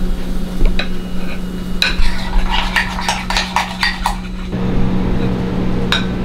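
Metal spoon and table knife scraping and tapping against a ceramic plate while spreading a soft topping, with a quick run of scrapes and clinks in the middle and single clinks before and after. A steady low hum runs underneath.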